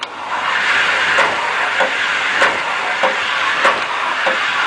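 Hotpoint Aquarius vented tumble dryer running, with a steady rush of airflow and a knock about every 0.6 seconds as the drum turns. It is the banging of a drum that has broken off its rear bearing shaft and runs slanting back.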